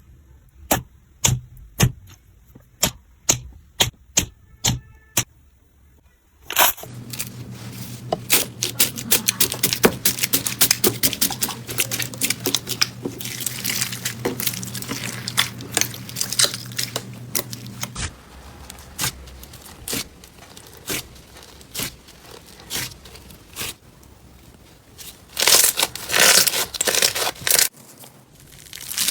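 Slime being handled: a run of sharp pops and clicks, then a long stretch of dense crackling over a low hum, then sparse pops again and a few loud crackly squishes near the end.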